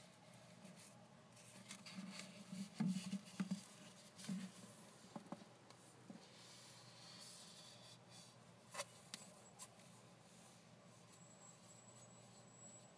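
Faint handling noise as a jade bangle is picked up off cloth and turned in the fingers: soft rustling and rubbing about two to four seconds in, then a few light clicks, the clearest near nine seconds.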